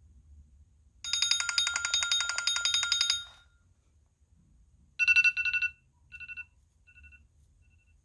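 iPhone 11 Pro ringtones playing through the phone's speaker. About a second in, a fast trilling bell-like ring lasts about two seconds. About five seconds in, a short chiming tone sounds, then repeats three times, fainter each time.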